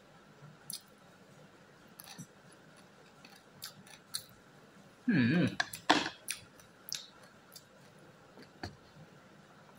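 Sparse light clicks and taps of a metal spoon and wooden chopsticks against a plastic food tray while eating noodles. About five seconds in there is a short, loud voice-like sound, followed by a few sharper clicks.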